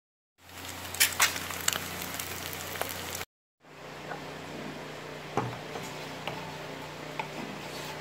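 Eggs frying sunny-side up in oil in a nonstick pan: a sizzle over a steady low hum, with several sharp pops of spitting oil. After a short gap, a steady low hum with scattered light taps and clicks as a utensil works in a bowl.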